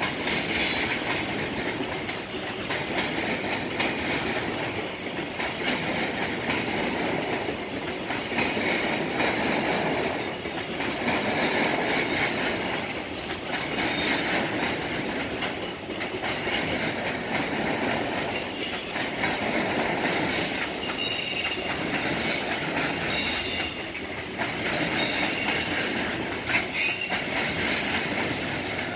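A long freight train of container wagons rolling past at speed: a steady rumble of wheels on rail, with brief high wheel squeals and knocks over the rail joints. The knocks grow louder near the end.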